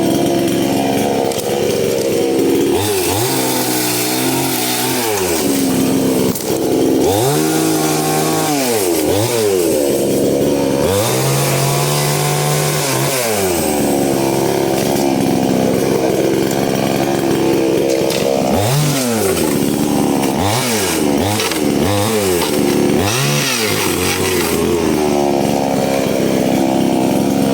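An engine revving up and down repeatedly, about eight rises and falls in pitch, over another engine running steadily underneath.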